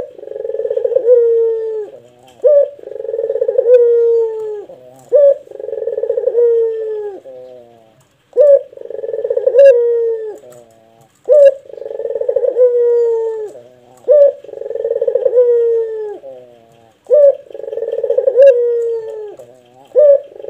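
Caged Barbary dove (puter) cooing in a deep voice: a short note, then a long coo that falls in pitch, repeated about every three seconds.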